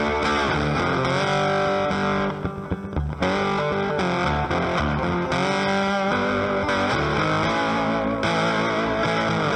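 Background rock music led by distorted electric guitar over bass, thinning out briefly about two and a half seconds in.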